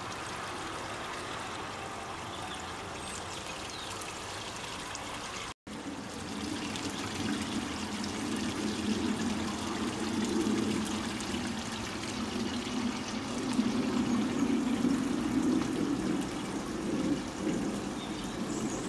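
Small garden fountain running, its water spilling steadily into the basin with a continuous trickling splash. It drops out briefly about five and a half seconds in, then comes back fuller and louder.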